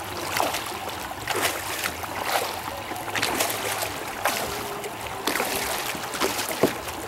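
Double-bladed kayak paddle dipping into river water, with repeated splashes and drips off the blades as the strokes go in on alternating sides; one sharper splash near the end.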